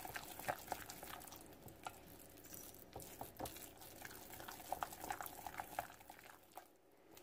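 Utensil stirring a thick ricotta cheese, egg and parsley mixture in a glass mixing bowl: faint wet squishing with scattered light clicks against the glass, pausing briefly near the end.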